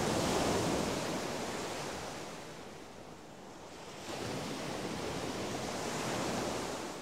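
Ocean surf washing, the sound ebbing then rising again about four seconds in, and fading away near the end.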